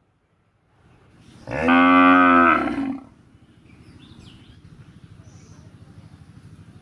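One long, low-pitched animal call about a second and a half in, lasting about a second and a half, followed by a faint low rumbling.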